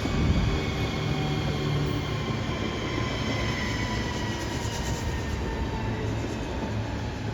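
Train running past on the rails: a steady rushing noise with a faint whine.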